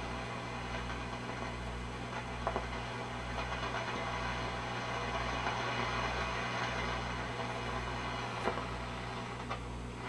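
Shortwave static from a Grunow 1191 all-wave tube radio's speaker: a steady hiss over a mains hum, with a low throb that pulses about once a second and a couple of faint clicks.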